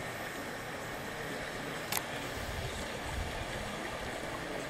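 Steady outdoor background noise of water and wind, with a single sharp click about two seconds in.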